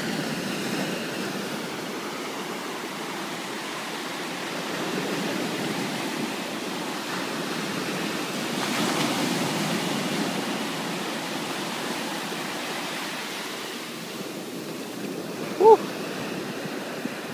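Small waves breaking and washing up a sandy beach, an even rush of surf that swells and ebbs as each wave comes in. Near the end a brief high-pitched call cuts in, the loudest moment.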